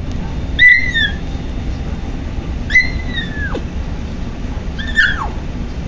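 Kitten giving three high, thin mews about two seconds apart, each holding its pitch briefly, then falling away at the end.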